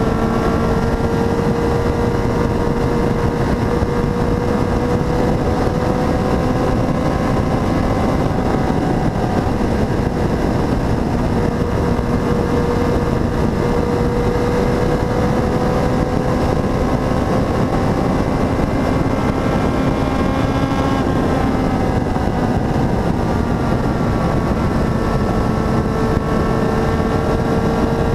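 Motorcycle engine running steadily at cruising speed, its note drifting slowly up and down, under a constant rush of wind.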